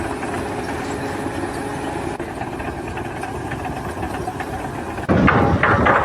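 An engine running steadily at idle, most likely on construction machinery. A louder, rougher noise breaks in suddenly about five seconds in.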